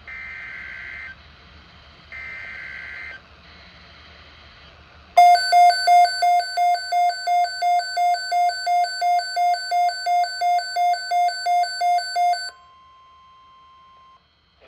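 NOAA Weather Radio Emergency Alert System tones. First come two roughly one-second digital data bursts, heard as raspy buzzes. After a pause, a loud beeping alert tone pulses about three times a second for some seven seconds, then a faint steady tone sounds briefly.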